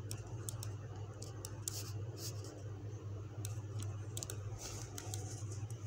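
Ballpoint pen writing on lined notebook paper: short, irregular scratches and taps of the pen tip over a steady low hum.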